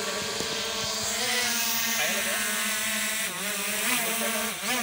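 Quadcopter drone's propellers buzzing steadily as it hovers overhead, a whine of several tones whose pitch wavers up and down a few times as the motors adjust.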